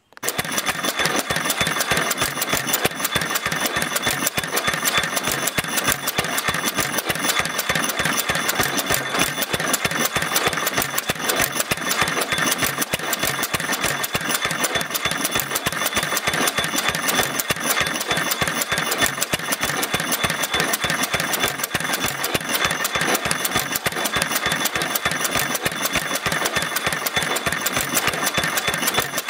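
Fairbanks Morse 3 hp Z single-cylinder stationary engine running steadily with a rapid, even firing beat. It is fed through its newly fitted check valve and copper fuel line, and it keeps running, a sign the check valve is working. The sound starts abruptly and holds steady.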